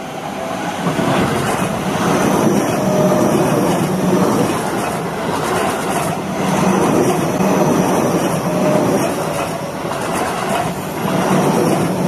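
Electric commuter train passing close by at a level crossing: the rumble of its wheels on the rails swells about a second in and stays loud as the cars run past.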